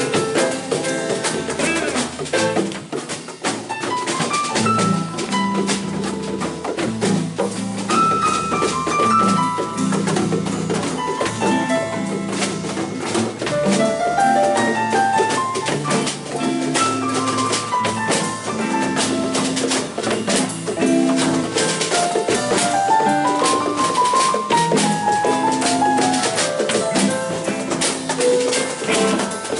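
Small live band playing together: drum kit with a steady cymbal pattern, electric bass, keyboard and electric guitars, with quick rising and falling runs of single notes over the rhythm.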